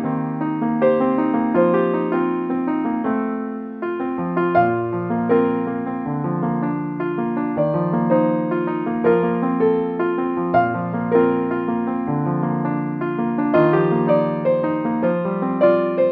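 Background music: a soft piano piece, gentle melody over sustained bass notes.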